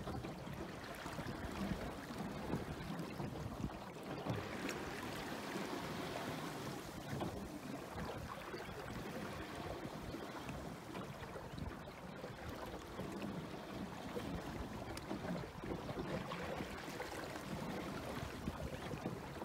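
Wind-driven chop splashing and rushing along a Mirror dinghy's hull as it sails, with gusty wind.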